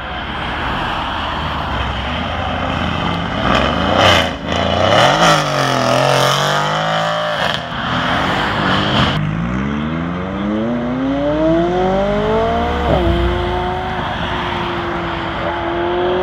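Cars accelerating away past a crowd. Early on, a loud burst of engine revving and road noise rises and falls. Then another car accelerates hard, its engine pitch climbing steadily through one gear, dropping sharply at a gear change about two-thirds through, and pulling on steadily.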